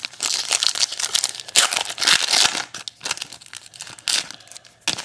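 Trading card pack wrapper being torn open and crumpled, a dense rustling crinkle for the first half and then scattered crinkles, with a short burst near the end.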